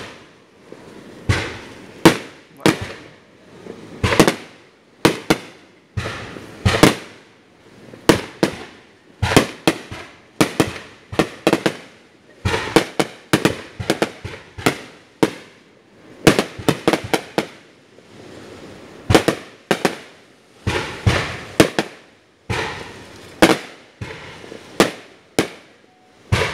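Aerial fireworks display: an irregular, continuous series of sharp bangs from shells bursting, often several in quick succession, each trailing off briefly before the next.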